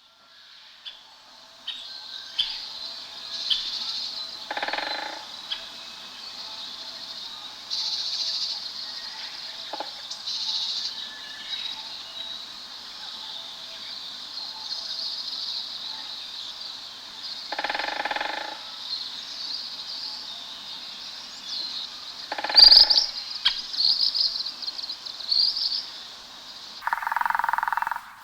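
A dense chorus of wild birds, many chirping and trilling at once without a break. Three times, a few seconds apart, and again near the end, a short, lower, croaking call breaks in.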